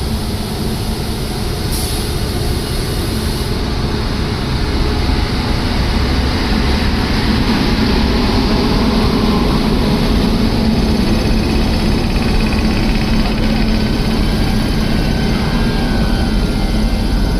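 Poorva Express passenger train rolling out of the station: a steady, loud rumble of the moving train with a low hum, swelling slightly over the first few seconds and then holding.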